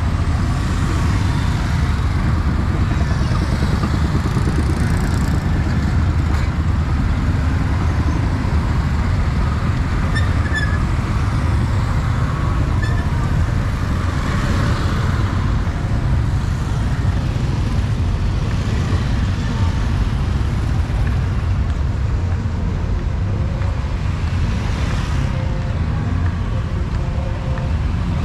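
City street traffic: a steady rumble of passing vehicles, with no single event standing out.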